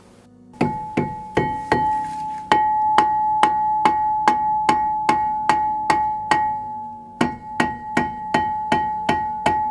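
Rubber mallet striking a rusted front brake rotor again and again, two to three blows a second with a short break near the end, each blow leaving the steel disc ringing. The rotor is being knocked loose where rust has stuck it to the hub.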